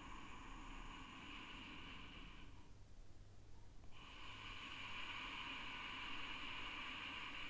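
Ujjayi pranayama breathing: a soft ocean-like hissing from the throat, made by narrowing the glottis while breathing slowly. One long breath breaks off about two and a half seconds in, and after a pause of about a second and a half the next breath begins.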